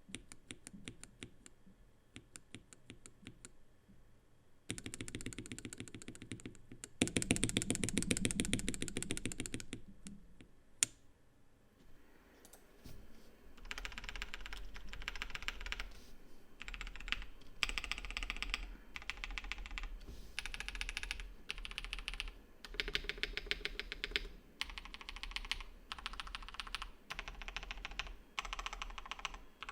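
Typing on a mechanical keyboard with stock, unlubed Red Jacket linear switches, in bursts of rapid keystrokes with short pauses. The typing is faint at first and loudest and fastest about five to ten seconds in.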